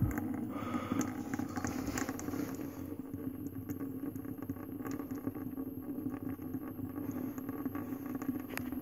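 Old engine oil dripping and trickling out of the drained engine into a container: an irregular patter of small drops over a steady low hum. Only a thin flow comes out, the engine seeming to hold little oil.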